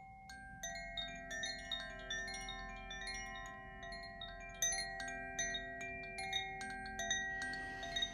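Earth Koshi chime ringing: its tuned metal rods are struck by the clapper several times a second in an irregular pattern, and the long ringing tones overlap into a shimmering cluster. A soft rustle comes near the end.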